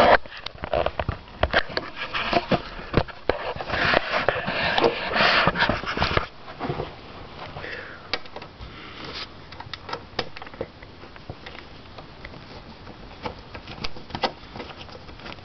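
Screwdriver backing screws out of a laptop's plastic screen housing: scattered sharp clicks and scrapes, with denser rustling handling noise in the first six seconds or so, then only occasional clicks.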